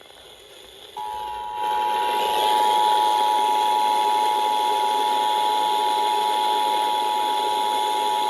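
Emergency Alert System attention signal: the harsh two-tone alarm starts about a second in and holds steady over a hiss of background static.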